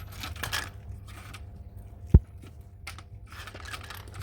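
Scrap being handled, with short rustling and scraping noises over a steady low rumble, and a single low thump about two seconds in.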